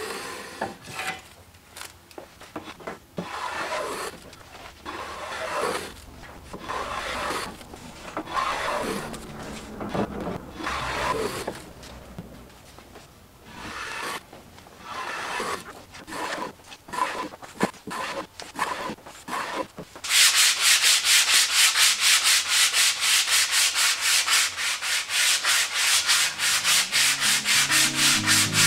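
A small hand plane shaving the corners of a long square wooden spar to round it, in uneven scraping strokes. About twenty seconds in this gives way to louder hand sanding of the rounded spar, fast and even back-and-forth strokes, about four or five a second.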